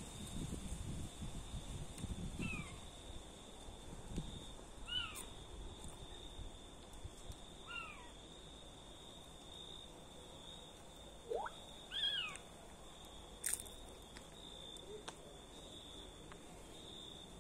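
An animal's short, high calls, each rising then falling in pitch, heard four times a few seconds apart, with a quicker upward-sweeping call near the middle. A steady high insect trill runs underneath.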